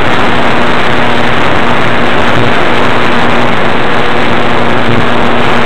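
RC airplane's motor and propeller running at steady flight power, heard through the plane's onboard camera: a loud, even rush of propeller and wind noise with a steady hum, unchanging as the plane climbs.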